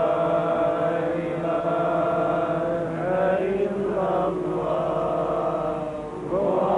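Male chanting of an Arabic Islamic recitation, drawn out in long held notes with melodic turns and no break.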